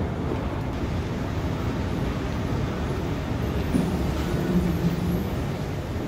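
Steady low rumble of a large indoor concourse and moving walkway, with a brief low hum a little before the end.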